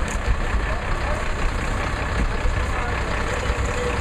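Diesel engine of a MAN fire engine carrying a Magirus turntable ladder, running at low revs as the truck rolls slowly forward: a steady low rumble.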